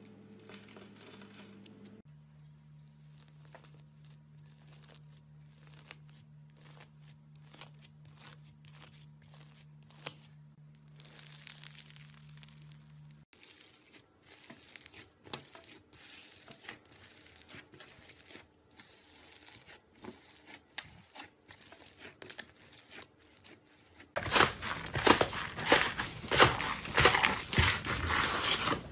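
A run of short slime ASMR clips: soft crackles, clicks and tearing sounds of slime and crumbly material being cut, poked and squished, over a faint steady hum in the first half. Near the end, blue fluffy slime pressed and stretched by hand in a glass dish gives loud, dense crackling and tearing, the loudest part.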